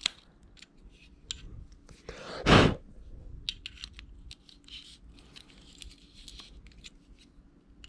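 Small clicks and scrapes of a Leatherman multitool's flat screwdriver blade working in the battery cap of a red dot sight, the cap spinning without catching its threads. One short, loud rush of noise about two and a half seconds in.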